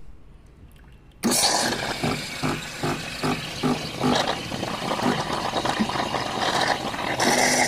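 Wonderchef Regenta semi-automatic espresso machine running. A loud hiss starts abruptly about a second in, with a regular pulsing of two to three beats a second, and the sound shifts near the end.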